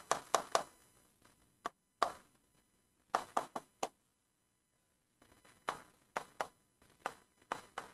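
Pen tip tapping and scraping on the glass of an interactive touchscreen board while words are handwritten, in short irregular clusters of clicks with pauses between.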